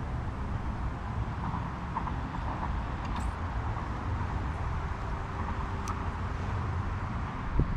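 Steady low outdoor rumble, with a few faint short clicks.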